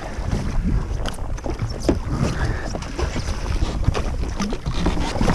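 Wind buffeting the microphone over the low rumble of water around a jet ski at sea, with scattered small knocks and splashes.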